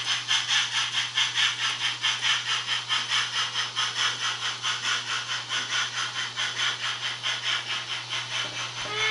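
Sound decoder of a Märklin model steam locomotive playing rhythmic steam chuffs, about four to five a second, growing slowly fainter over a steady low hum.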